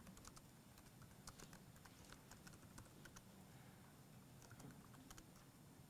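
Faint typing on a laptop keyboard: irregular, scattered key clicks.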